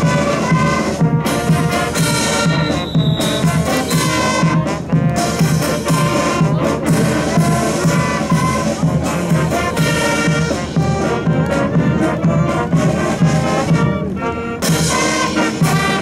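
Brass band playing a march, trumpets and trombones over a steady drum beat.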